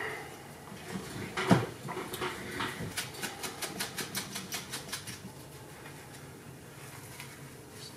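A foam swab rubbed quickly back and forth inside an aluminium heat sink, wiping out old thermal compound: a knock about a second and a half in, then a fast, even run of scratchy strokes, about six a second, for a couple of seconds before the handling goes quiet.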